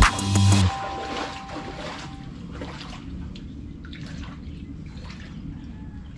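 Background guitar music stops within the first second. After that, shallow floodwater trickles and sloshes lightly around a person's legs as they stand in it, with a few faint ticks.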